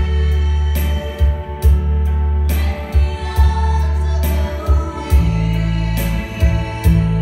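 A live song: a vocalist singing into a microphone over electronic keyboard accompaniment with sustained bass notes and a steady beat, amplified through PA speakers.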